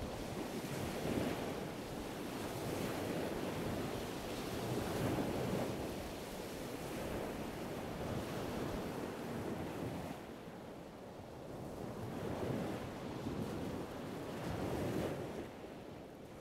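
Waves washing onto a shore, swelling and ebbing every couple of seconds, with a quieter lull about two-thirds of the way through.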